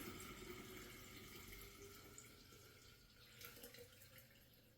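Faint trickle and drip of the last water running down a shower floor drain, fading away as the drain empties.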